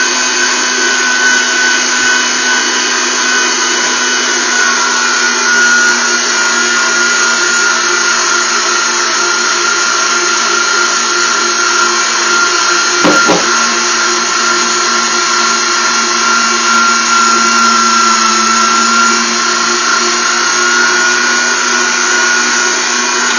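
Spremy electric tomato strainer's motor running steadily with a constant whine while it presses cooked crabapples through its screen. A single brief knock about halfway through.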